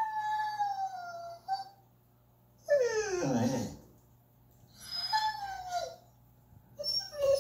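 Young German Shepherd whining in long, high drawn-out whines that fall in pitch: one at the start, one about three seconds in that slides far down like a short howl, and another about five seconds in, with a few short whimpers near the end.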